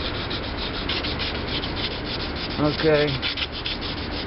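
Hand sanding of primer on a metal part: sandpaper rubbed back and forth in quick, even strokes as paint prep before the next coat of primer.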